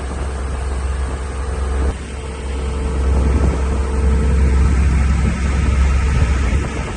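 Steady low rumble of a vehicle on the move, with a constant hum; it gets louder about two seconds in.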